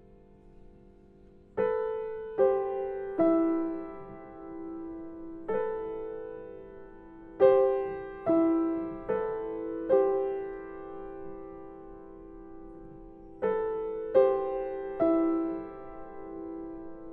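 Slow, sparse background music of single struck notes that start sharply and ring out and fade. The notes begin about a second and a half in, pause briefly past the middle, and resume near the end.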